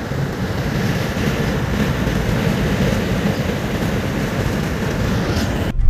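Steady road and wind noise of a car driving at speed on a paved highway, heard from inside the car; it cuts off suddenly near the end.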